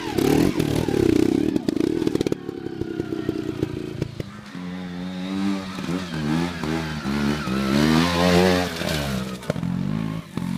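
Trial motorcycle engine, loud and close with clattering over the first two seconds, then revved in repeated rises and falls as the bike climbs a steep dirt section.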